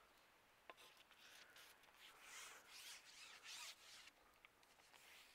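Faint rubbing and scraping from a carbon fishing pole being handled, with a single click under a second in and a few short swishes in the middle.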